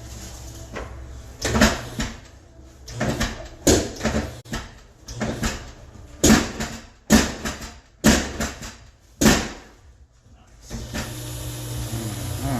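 A series of about nine sharp knocks or thuds, each dying away quickly, followed near the end by a steady low hum with hiss.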